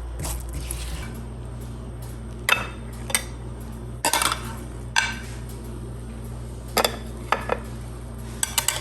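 Kitchen utensils knocking and clinking against pans and dishes: about ten scattered, separate clinks over a steady low hum.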